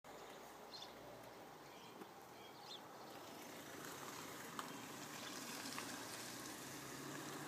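Faint steady outdoor background noise. Two short high chirps come in the first three seconds, and there are a couple of light clicks later.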